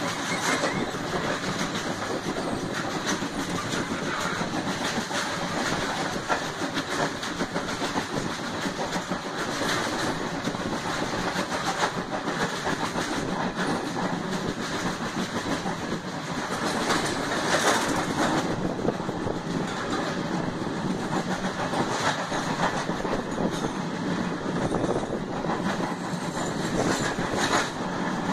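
Passenger train running at speed, heard from inside the coach: a steady rumble and rush of air, with the wheels clacking irregularly over the rail joints.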